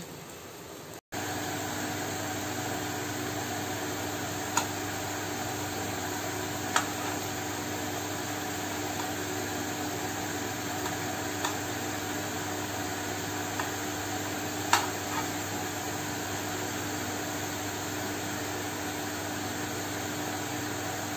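Malpua batter frying in hot oil on a non-stick tawa: a steady sizzle with a steady hum under it, coming in abruptly about a second in. A few sharp clicks of metal tongs and a spatula against the pan.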